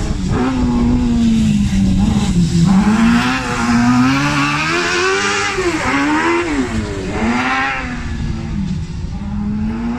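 Autocross buggy engine running hard on a dirt track, revving up and down several times as it is driven through a hairpin. It is loudest in the middle as it passes close, and fades toward the end.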